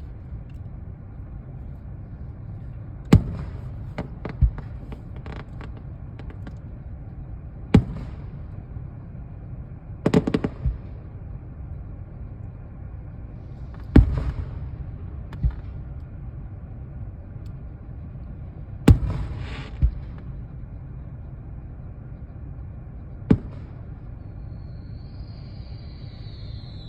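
Fireworks going off: about nine sharp bangs a few seconds apart, two of them followed by brief crackling, over a steady low rumble. A faint high whistle wavers near the end.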